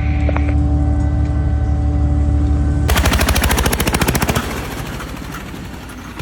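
A machine engine hums steadily, then about three seconds in gives way abruptly to a rapid train of sharp impacts, many per second, that slowly fades.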